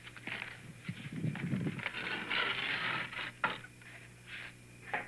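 Scuffling and rustling with a few sharp knocks as someone clambers through a window, over a steady low hum.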